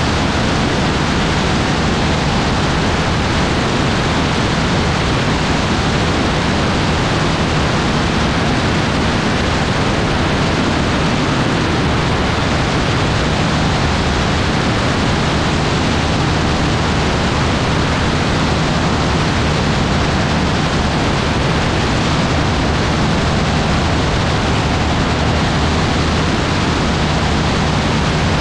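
Autogyro in steady cruise flight: a constant rush of airflow noise with the engine's low, even drone beneath it, unchanging throughout.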